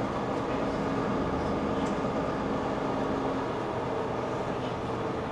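Steady interior running noise of a Mercedes-Benz Citaro C2 K hybrid city bus: an even hum of drivetrain and road noise, heard from inside the passenger cabin, with a low steady tone in it for the first few seconds.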